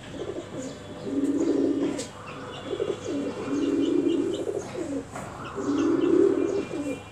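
Pigeon cooing over and over, a run of low coos each about a second long, with faint higher bird chirps alongside.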